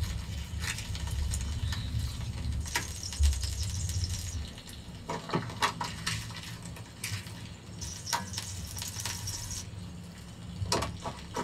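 Balls of oiled parotta dough being pressed flat and spread by hand on a tabletop: scattered soft, wet slaps and squishes.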